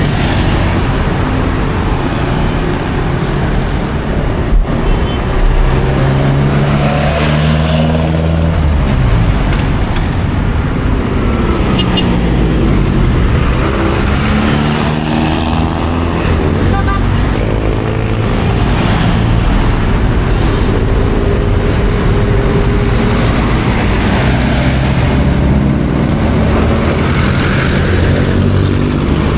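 Busy road traffic: car and truck engines passing close by, their pitch rising and falling as they speed up and pull away over a steady roar of tyres and engines.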